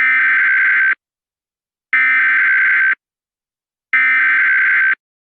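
Emergency Alert System SAME header: three one-second bursts of rapid two-tone digital data, about two seconds apart. These bursts open an EAS alert and encode the event and area codes.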